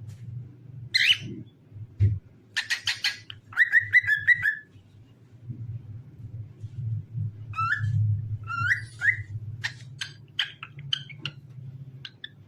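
Cockatiel whistling and chirping: a quick run of rattling chirps about three seconds in, then rising whistled notes and short chirps through the second half, over a low steady hum.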